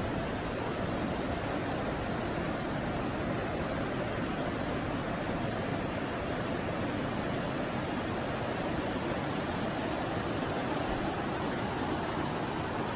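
Steady rushing of a forest stream, an even hiss of water with no distinct splashes or other events.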